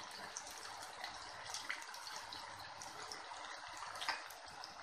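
Batter-coated chicken pakoda pieces deep-frying slowly in hot oil in a wok: a steady sizzle with scattered small crackles.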